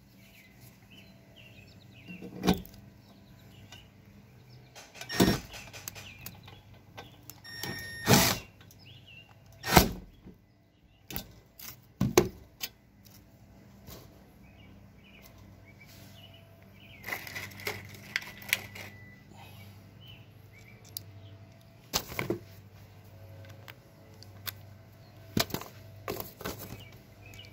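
Scattered metallic clicks and knocks as a chrome rope cleat, a self-drilling screw and a hex driver bit are handled and set against a steel fence rail: about eight sharp knocks spread irregularly, with a short rustling scrape a little past the middle.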